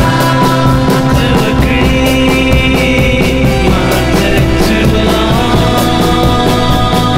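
Background music with a steady drum beat and held pitched notes, turning louder right at the start.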